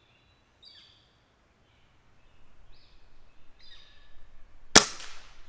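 Air Arms TX200 MkIII underlever spring-piston air rifle firing a single shot, one sharp crack about three-quarters of the way in.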